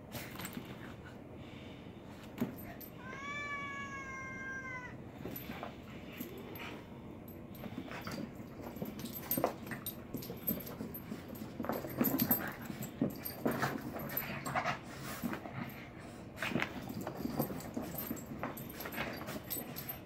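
A cat gives one long, drawn-out yowl about three seconds in. From about eight seconds on, Boston terriers and the cat tussle on carpet: a run of uneven scuffling thumps and rustles.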